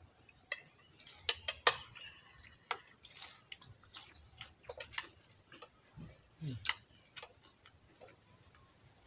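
Metal spoons clinking and scraping against a plate of rice: a run of irregular sharp clicks. There are a couple of short, high, falling chirps about four seconds in.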